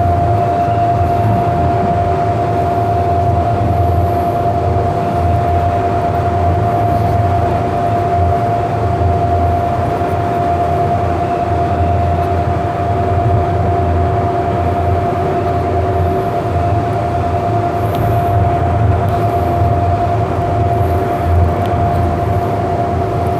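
Inside a Siemens S200 light rail car: a steady low rumble with a constant, unchanging high hum over it.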